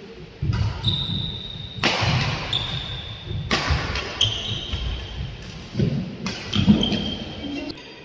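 Badminton rally in a large hall. Rackets crack against the shuttlecock a few times, sneakers give short high squeaks on the court floor, and footsteps thud steadily, with an echo after the louder hits.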